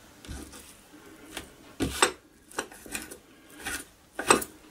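Kitchen knife cutting bacon into small pieces on a cutting board, the blade knocking on the board in irregular strokes, the loudest near the end.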